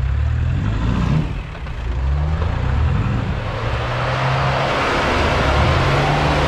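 Off-road 4x4's engine revving hard under load as it climbs an obstacle in mud, its pitch rising and falling. A rushing noise builds from about halfway through.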